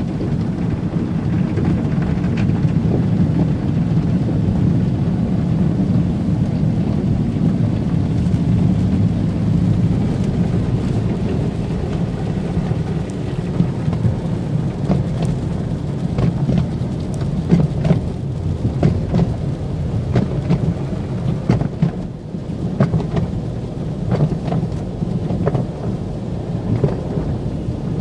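Water from a car wash spraying and drumming on a car, a steady rain-like rush over a low rumble, with sharper spatters and ticks in the later part.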